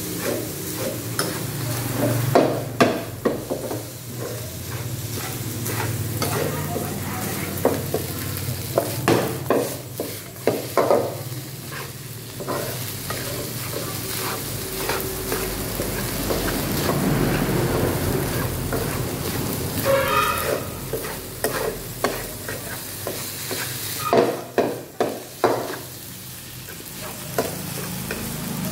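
Egg fried rice sizzling in a frying pan while a metal slotted turner stirs and scrapes it, with several spells of quick knocks and scrapes of the utensil against the pan.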